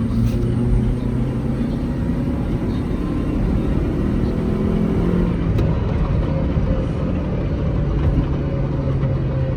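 2003 Honda CR-V's 2.4-litre K24A1 four-cylinder engine running as the car is driven on a road test of its VTEC system, over steady road noise; the engine note shifts in pitch a few seconds in, then holds steady.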